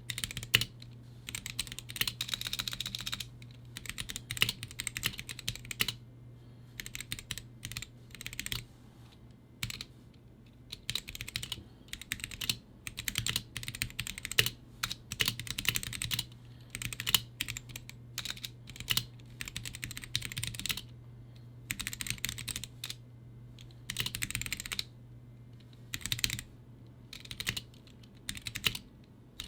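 Typing on a GamaKay (Womier) K87 mechanical keyboard with Gateron Yellow linear switches: runs of rapid keystrokes broken by short pauses. A steady low hum sits underneath.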